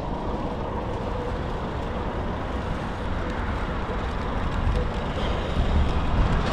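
Steady road traffic noise with cars and trucks going by, the low rumble swelling a little near the end.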